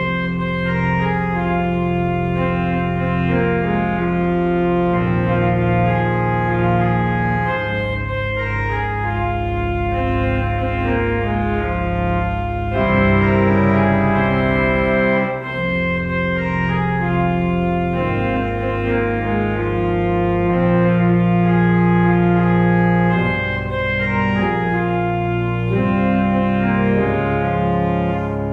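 Church organ playing slow music in long held chords over sustained low bass notes.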